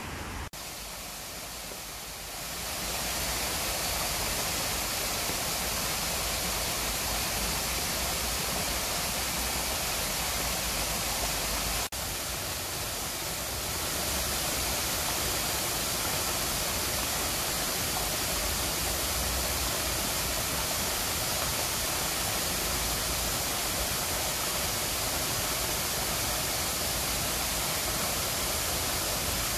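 Steady rush of falling water: rain, and in the later part a man-made rock waterfall cascading into a rain-dimpled pond. A brief break about twelve seconds in, after which it is a little louder.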